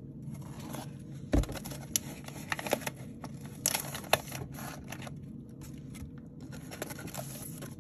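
Hands handling a plastic-wrapped corrugated cardboard mailer and the card packs inside it: rustling and crinkling with scattered sharp clicks and taps, the loudest a knock about a second and a half in.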